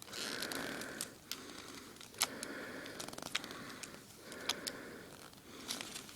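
Plastic Transformers Ratchet action figure being handled and twisted at its waist swivel: soft plastic rubbing and scraping with scattered light clicks.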